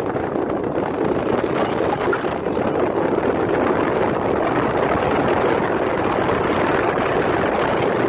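Steady rush of wind on the microphone mixed with road noise from a moving car.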